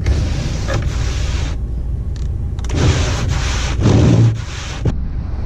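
Camper van's engine idling with a steady low rumble. Over it come two stretches of rushing noise, one in the first second and a half and a longer one from about three seconds in.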